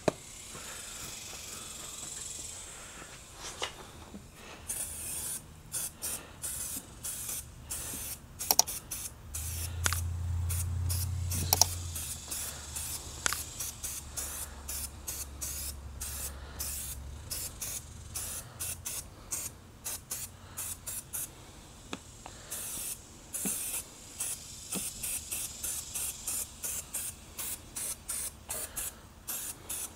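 Hand trigger spray bottle of detailing cleaner squirted in many quick bursts, in runs with short pauses, for touch-up cleaning on a motorcycle. A low hum runs under it for several seconds near the middle.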